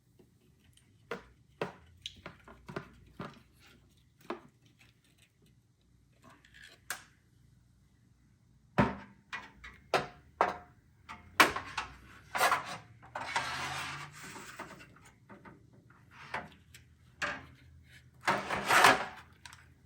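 Scattered clicks and knocks of computer hardware being handled, getting louder after the first half, with two short stretches of rubbing and scraping, one about 13 seconds in and one near the end.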